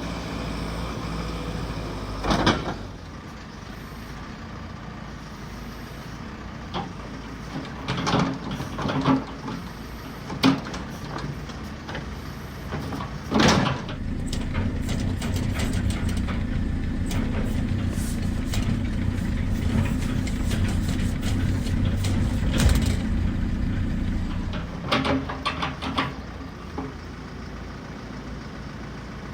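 JCB 3CX backhoe loader's diesel engine running steadily, with a scattering of sharp knocks. The engine note grows louder for several seconds in the middle, as if working under load, then settles back.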